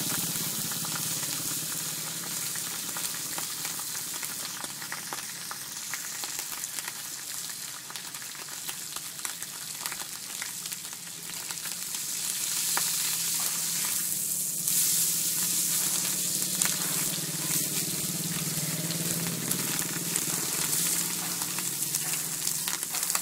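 Sliced bacon and onion sizzling on a hot flat griddle pan, a steady frying hiss that grows louder about halfway through. A metal spatula scrapes and taps against the pan, mostly in the second half.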